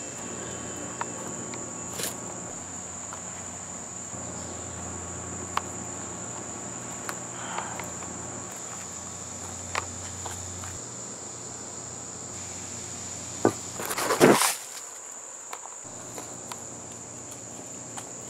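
Steady high-pitched trill of insects, with a few short clicks and a brief loud rush of noise about fourteen seconds in.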